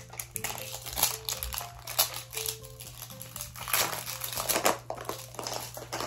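Plastic packaging crinkling and rustling in uneven bursts as a Mini Brands toy capsule's wrappers are handled and opened, over quiet background music.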